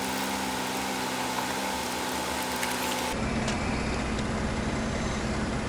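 2011 Ford F-150's engine idling with a steady hum. About three seconds in, the sound changes abruptly to a lower, pulsing rumble with less hiss.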